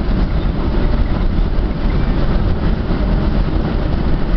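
Steady road and engine rumble inside a moving Suzuki car, heavy in the low end.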